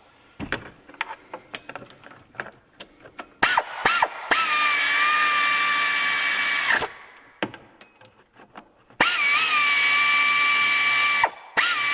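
Handheld power tool spinning the power steering pump's mounting bolts through the holes in the pulley. It runs as trigger pulls: two quick blips, then a steady whine for about two and a half seconds, a second run of about two seconds, and a short burst near the end. Light clicks and knocks of the tool and socket come in between.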